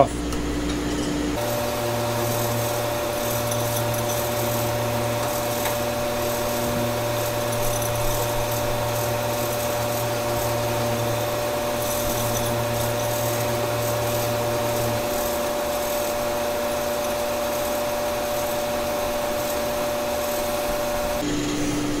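Steady whir and hum of fans running: a pellet stove and an electric heater powered from a portable power station that is working near its maximum load. A low hum drops out about two-thirds of the way through.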